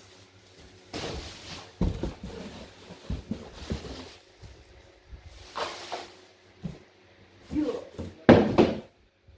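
Plastic bags rustling and cardboard packaging being handled while fan parts are unpacked, with irregular knocks and thumps. The loudest thump comes near the end, as a small cardboard box is tossed down.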